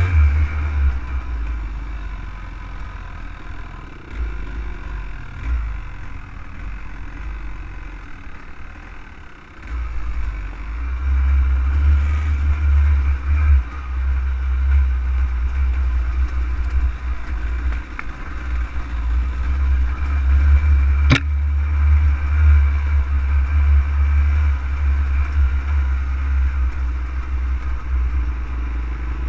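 Off-road vehicle engine running with a heavy low rumble while riding over a dirt trail. It eases off for several seconds, then gets louder again about ten seconds in. A single sharp click comes about twenty seconds in.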